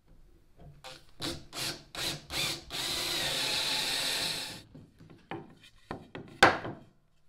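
Cordless drill with a long bit boring into a boat's gunwale: a few short bursts, then about two seconds of steady drilling. Then a few sharp knocks as a plywood drilling block is handled, the loudest about six seconds in.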